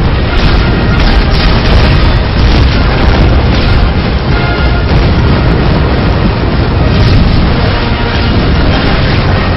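Loud music with deep booms of explosions and fireworks running beneath it throughout.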